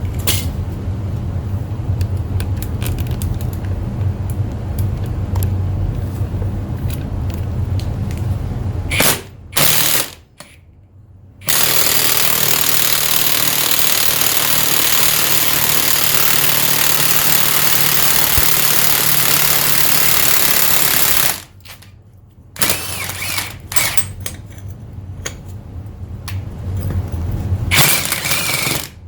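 Cordless impact wrench hammering in long runs. It runs for about nine seconds and stops briefly, then hammers steadily for about ten seconds. After that it goes in shorter, irregular bursts.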